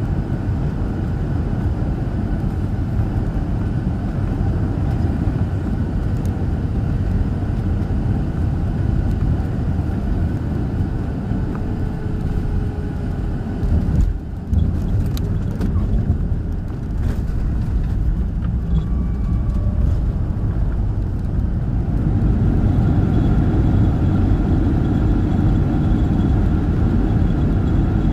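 Airliner cabin noise during a landing in strong wind: a steady rumble of engines and rushing air, broken by a brief dip and a few sharp knocks about halfway through. In the last several seconds the engines grow louder, with a steady higher whine.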